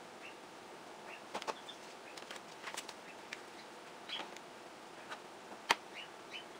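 Light taps, clicks and rustles of craft supplies handled on a tabletop as a rubber stamp is pressed onto paper and lifted, with one sharper click a little before the end. A few faint short chirps are scattered through it.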